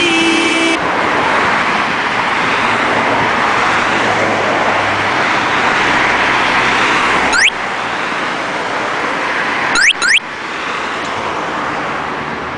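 Music cuts off, followed by a steady hiss of FM radio static, as between stations. Two quick rising chirps come about seven and a half and ten seconds in.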